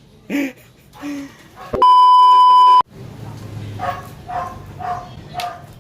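A loud, steady one-second bleep at about 1 kHz, starting and cutting off abruptly: a censor beep laid over speech. After it come several short voice-like sounds, about two a second.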